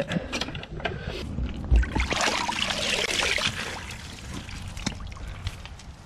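A few handling clicks and knocks, then about two seconds in a spell of water splashing and running off a Zoeller M98 submersible sump pump as it is pulled up out of the flooded sump basin, fading away after a couple of seconds.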